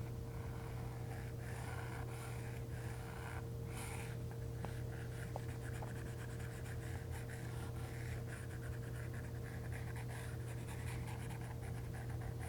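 Stylus rubbing across an iPad's glass screen in short coloring strokes, with a few light taps. A steady low electrical hum runs underneath.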